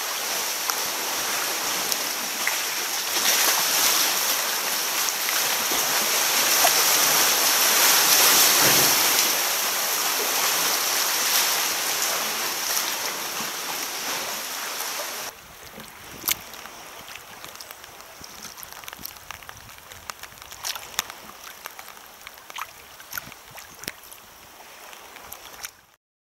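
Sea water rushing and splashing around rocks, a loud steady wash; about fifteen seconds in it drops suddenly to quieter water lapping around a sea kayak, with scattered sharp splashes and drips.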